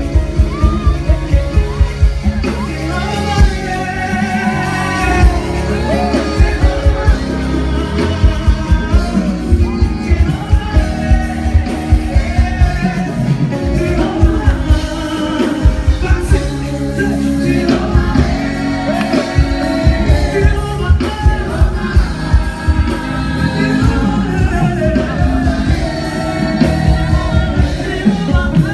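Gospel worship music: singing over a band with a fast, steady drum beat.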